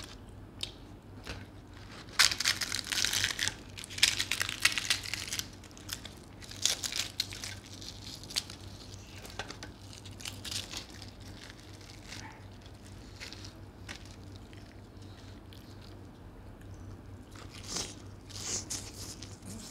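Deep-fried puri torn apart by hand, crackling and crinkling in dense bursts, loudest a few seconds in and again in shorter spells later; near the end a bite and chewing.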